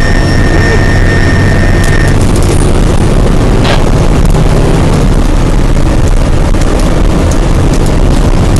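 Fire engine driving on a response, its diesel engine and road noise heard loud and steady from inside the cab. A steady high tone sounds over it for the first two seconds and then stops.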